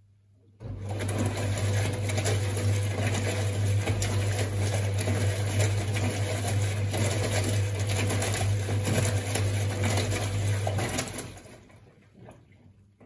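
Hajdú Energomat Komfort top-loading washing machine's motor starting abruptly and turning the drum: a steady electric hum with a busy mechanical whir, then winding down about eleven seconds in.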